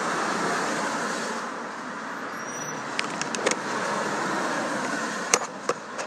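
Steady road traffic noise from a passing vehicle, easing a little and picking up again, with a few sharp clicks of a phone being handled about three seconds in and near the end.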